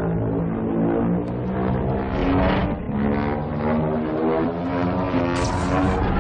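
Godzilla roar sound effect: a long, loud, pitched roar that shifts in pitch in steps. About five seconds in, a sharp high hiss joins it as the atomic-breath beam fires.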